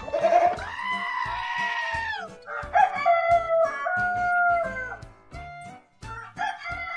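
A young goat gives one long bleat. Then a rooster crows, and a second rooster starts crowing near the end. Background music with a steady beat runs underneath.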